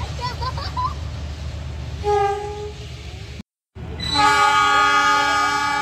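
Diesel locomotive horn sounding a multi-tone chord: a short blast about two seconds in, then, after a brief break in the audio, a long, loud blast from about four seconds in.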